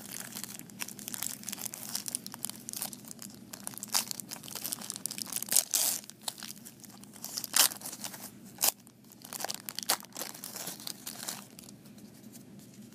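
Plastic wrapper of a 1990 Score football card pack torn open and crinkled by hand, in irregular crackling rips with the loudest ones in the middle. Toward the end it turns to softer rustling as the cards are handled.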